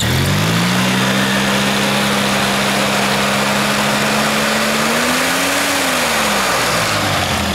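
Small engine revved up quickly and held at a steady speed, rising a little further and then dropping back toward idle near the end. Its belt-driven CVT clutches spin with a steady whir as the drive clutch closes on the belt.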